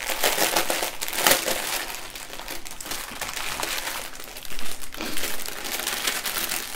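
Clear plastic packaging of a diamond painting kit's bags of resin drills being handled and crinkled, with sharper crackles about a second in and again near five seconds.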